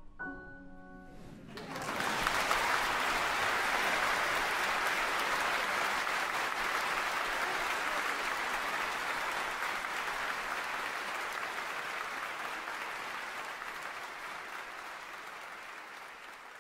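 The last soft grand-piano chord of the piece dies away. About a second and a half in, a concert-hall audience breaks into steady applause, which slowly fades toward the end.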